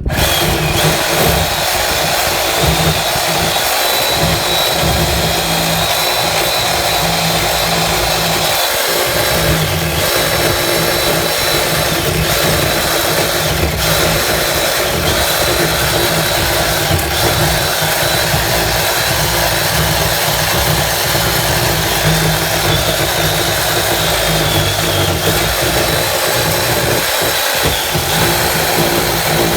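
Handheld power tool running steadily under load while trimming down the bottom edge of a sticking garden gate, with brief dips about 9 seconds in and near the end.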